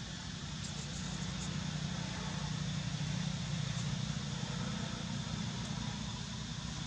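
A low, steady engine hum that grows louder toward the middle and eases off again.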